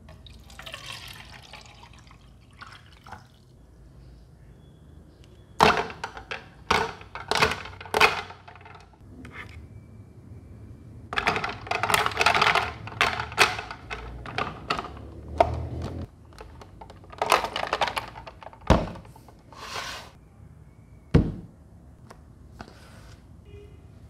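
Water poured into a small humidifier's clear plastic tank, then ice cubes dropped in, clinking and knocking against the plastic in quick runs. Two heavier thumps come in the later part.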